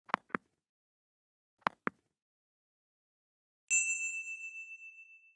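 Two quick double clicks of a computer mouse, the second pair about a second and a half after the first, then a single bell chime that rings on for over a second and slowly fades: the sound effects of a like-and-subscribe button animation.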